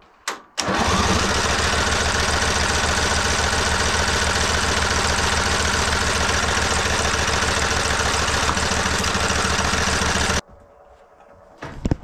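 Lawn tractor engine being cranked by its electric starter, powered straight across the starter solenoid's two terminals with a screwdriver. After a short click, the engine turns over at a steady, even pulse for about ten seconds without catching, then stops abruptly. That it turns over with the solenoid bypassed points to a bad solenoid, and the owner puts the failure to fire down to the engine having run out of gas.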